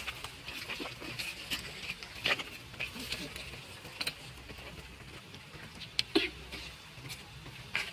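Scattered sharp clicks and small rustles over a faint steady hiss: a young macaque handling and biting into a piece of fruit. The strongest clicks fall about two, four and six seconds in.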